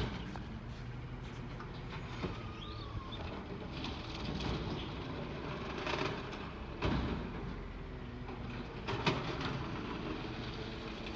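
Side-loading garbage truck's diesel engine running steadily, with several sharp knocks and bangs as its automated arm grabs a wheeled cart and dumps it into the body.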